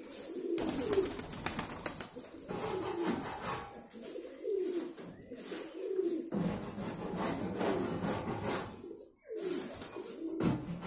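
Andijan pigeons cooing in repeated phrases, one every second or two, several birds overlapping.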